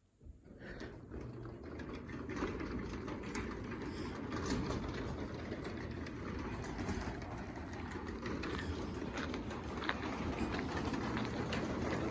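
Craftsman 3/4 horsepower belt-drive garage door opener raising the door. A steady motor hum and rumble starts right away and grows slowly louder, with scattered light clicks and rattles.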